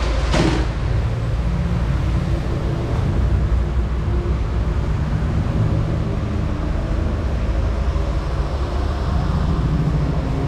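Steady low rumble of a running vehicle, cutting in suddenly and holding at an even level.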